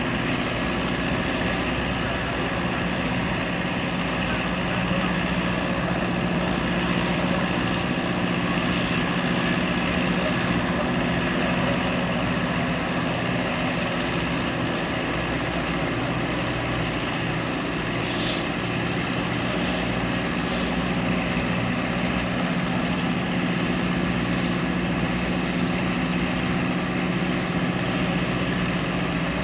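Boeing 929 Jetfoil's gas turbines running steadily, a constant whine made of several held tones over a rushing noise. A brief high squeak sounds about two-thirds of the way through.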